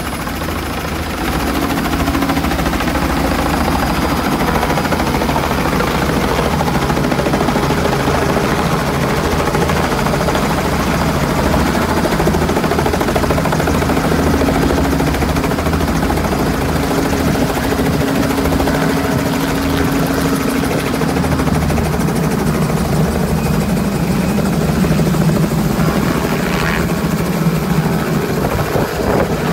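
Robinson R44 piston helicopter running close by, its two-bladed main rotor beating steadily as it hovers low over the pad and sits on it under power.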